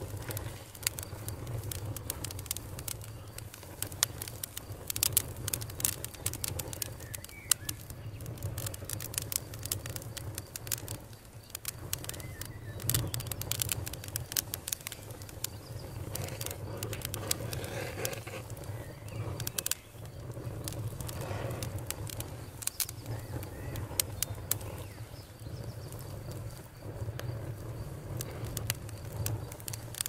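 Wood campfire crackling with frequent sharp pops over a low rumble, with a few faint bird calls and a steady faint chirring of crickets behind.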